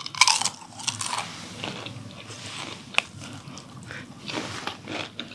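A person biting and crunching a Lay's potato chip, a string of crisp crunches and chewing with one sharp crack about three seconds in.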